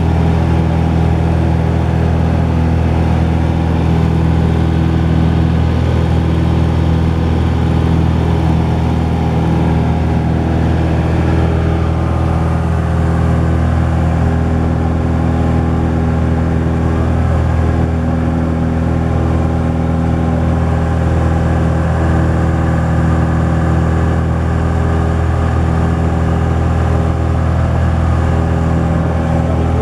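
Cessna 172's piston engine and propeller running steadily in flight, heard from inside the cabin as an even, unchanging drone.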